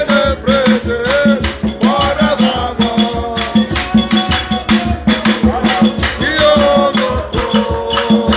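Worship music with a fast, steady beat of shakers and drums and a melody line over it.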